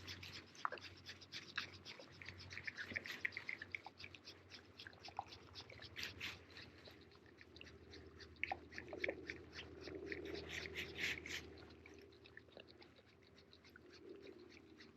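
Faint, irregular clicking and scratching from a Shimano Biomaster spinning reel being slowly cranked while the rod is shaken in a mid-strolling retrieve.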